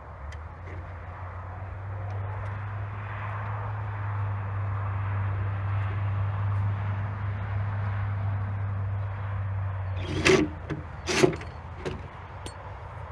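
An engine running steadily, its hum growing louder, then stopping about ten seconds in. Right after, two loud clanks about a second apart, followed by a few faint knocks.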